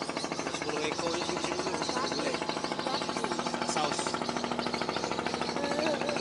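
Boat engine running steadily with a fast, even pulse, and faint voices over it.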